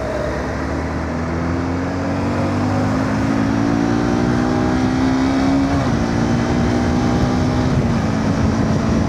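Motorcycle engine pulling up through the revs for several seconds, dropping in pitch at a gear change about six seconds in, then running on at a steadier pitch.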